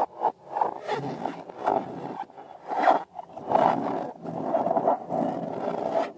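Latex balloons and slime being handled and squeezed, making squeaky, rasping rubbery noises in quick short bursts that run together into longer, steadier stretches in the second half.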